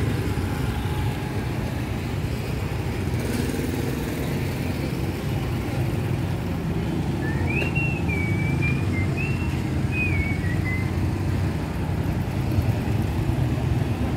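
Steady low rumble of outdoor street noise, with a short warbling whistle-like tone for a few seconds about halfway through.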